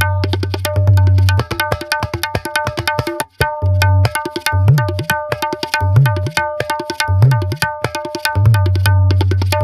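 Tabla playing: quick ringing strokes on the tuned right-hand drum over booming strokes on the bass drum, some of whose notes bend up and back down in pitch. There is a brief break a little past three seconds.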